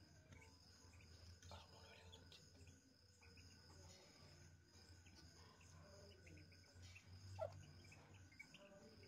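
Faint, scattered high peeps of newly hatched Muscovy ducklings over a low steady hum, with one louder short call about seven seconds in.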